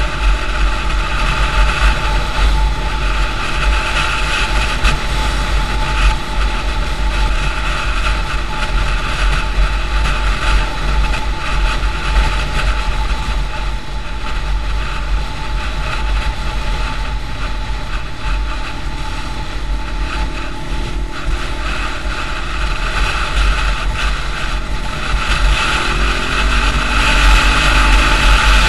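Wind rush and road noise on the camera microphone of a motorcycle at road speed, with its engine running underneath. In the last few seconds the engine note rises and gets louder as the bike accelerates.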